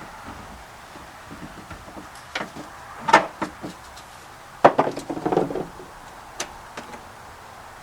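Irregular knocks, taps and handling noises, including a short stretch of rustling or scraping about five seconds in, from sound-deadening mat being laid and worked onto a car's bare floor.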